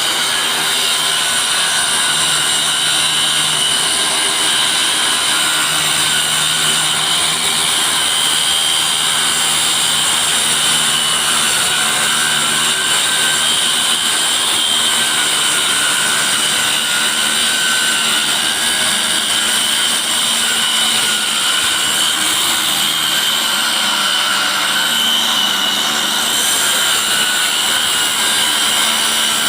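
Portable electric circular saw running steadily at full speed, with a constant high-pitched motor whine.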